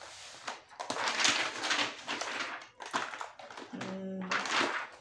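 Rustling and clattering of makeup packaging as products are rummaged through, in irregular noisy bursts.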